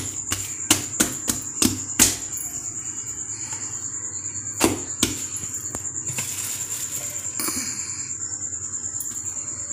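Hands patting and pressing pizza dough flat on a floured pan: several sharp pats in the first two seconds and two more about four and a half to five seconds in, over background music with a steady beat.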